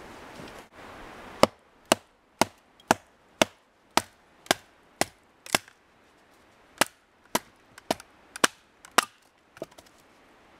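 Fixed-blade Fallkniven A1 survival knife chopping into a dry, dead wooden pole: a run of sharp, crisp strikes at about two a second, with a short pause partway through, ending in a few lighter taps.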